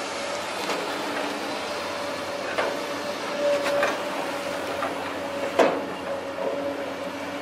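Long-reach excavator working: the machine runs with a steady whine, broken by a few sharp knocks, the loudest about five and a half seconds in.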